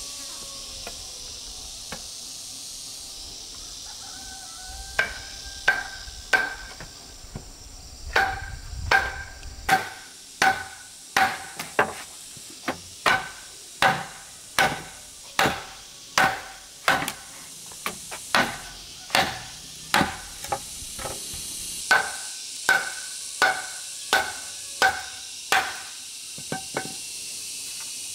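Machete chopping at a bamboo pole: a long run of sharp, evenly spaced strikes, roughly one every two-thirds of a second, each with a short ringing tone, starting about five seconds in and stopping shortly before the end. Insects buzz steadily in the background.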